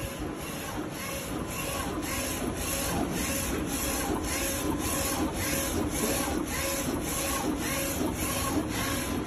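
Print head carriage of a 30 cm DTF (direct-to-film) printer shuttling back and forth while printing, in an even rhythm of about two passes a second.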